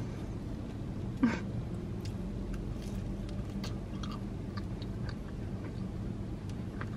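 A person chewing a Twix Papa Bite dessert bite dipped in caramel sauce, with small wet mouth clicks and a brief louder bite or smack about a second in. A steady low hum runs underneath.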